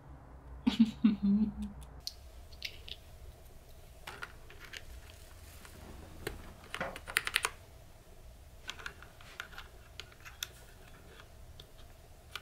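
Plastic keycaps clicking and clacking as they are pressed onto and pulled off the red-stemmed switches of a Durgod mechanical keyboard, in scattered single clicks with a quick run of clicks midway. A short voice-like sound comes just before the clicking begins.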